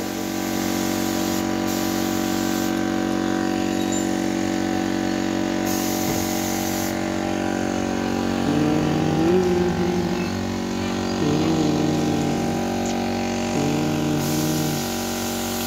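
Compressed-air paint spray gun spraying paint onto a wooden chair: a steady hum from the air compressor under the hiss of the spray, which strengthens and fades in spells as the trigger is worked.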